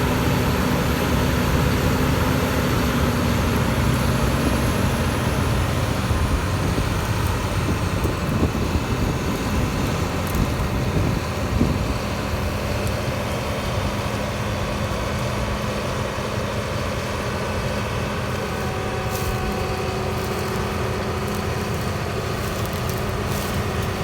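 Heavy diesel engine running steadily, its note easing down slightly in the first few seconds and then holding even.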